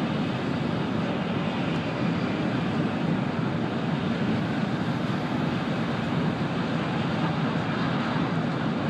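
Steady running noise of a Sanyo Shinkansen bullet train at speed, heard inside the passenger car: an even rumble and rush from the wheels and the air rushing past, with no changes or sudden sounds.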